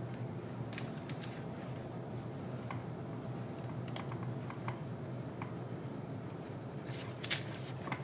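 Light clicks and scrapes of a metal spatula spreading whipped cream onto a crisp crepe in a wooden stand, over a steady low room hum. The clicks are scattered, with a few close together about a second in and a sharper click near the end.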